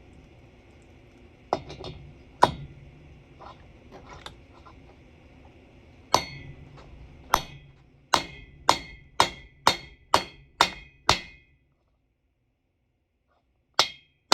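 Hammer blows on metal, tapping 46 mm intake valve seats home in an aluminium race cylinder head, each strike ringing briefly. A few spaced blows come first, then a quick run of about seven at roughly two a second, then two more near the end.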